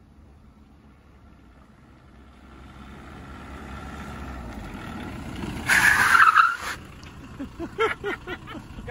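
Volkswagen Rabbit pickup's diesel engine growing steadily louder as the truck drives up and passes close by, with a loud rushing burst lasting about a second as it goes past. Then a man laughs.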